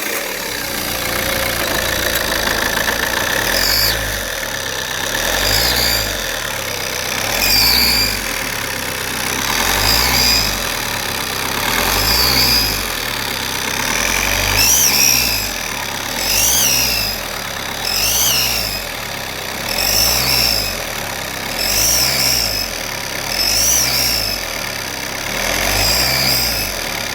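Opel Signum 1.9 CDTI four-cylinder turbodiesel idling just after starting, with a high-pitched squeak repeating about every two seconds in step with a slow rhythmic throb in the engine note.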